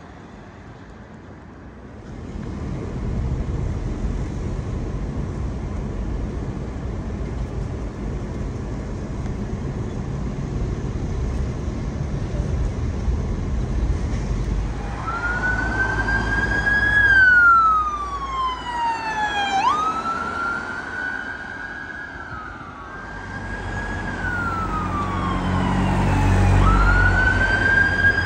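Emergency vehicle sirens over a steady traffic rumble. From about halfway a fire engine's siren wails in slow rising and falling sweeps. Near the end an ambulance siren grows louder and starts sweeping faster.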